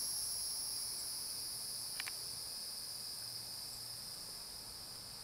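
Insects chirring steadily in a high, even drone, with a faint click about two seconds in.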